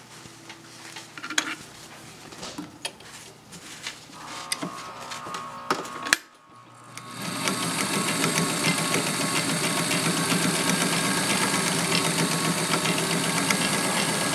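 Kenmore zigzag sewing machine stitching through two layers of upholstery fabric, starting about seven seconds in and then running steadily at an even speed. Before it starts there are soft rustles of the fabric being handled and a few clicks.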